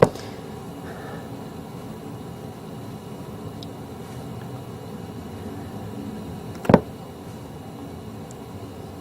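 Two short, sharp knocks, one at the very start and another about seven seconds in, over a steady low hum.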